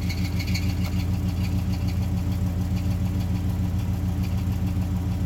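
GM truck engine idling steadily with a fast, even beat. The engine had seized from oil loss when its oil cooler hose came loose and was freed by hand; it carries a noise the owner can't identify.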